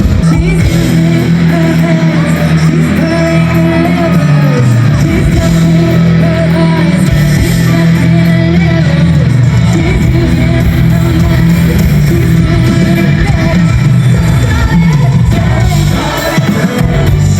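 A live band playing loudly, a singer's voice over guitar, bass and drums.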